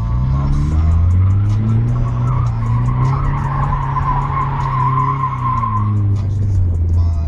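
A car doing donuts: the engine revs up and down while the driven tires spin and skid, with the skidding loudest through the middle of the stretch.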